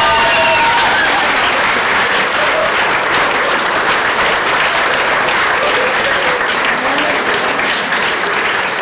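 A roomful of people clapping, a dense, steady applause. High shrieks of cheering die out within the first second.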